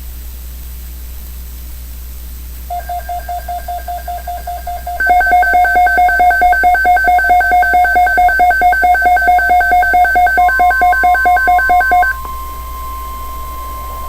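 Rapid electronic alert beeping, several pitches pulsing together many times a second over radio hiss: soft at first, much louder about five seconds in, stopping after about nine seconds. Near the end a steady single-pitch tone starts, the NOAA Weather Radio warning alarm tone that comes before a broadcast alert message.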